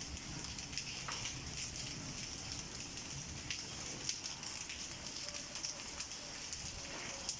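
Heavy rain falling, a steady hiss with a few scattered sharp taps of drops or hailstones striking hard surfaces.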